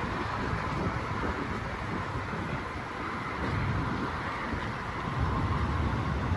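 Wind buffeting the microphone, a fluttering low rumble that gusts harder near the end, over a steady outdoor background hiss.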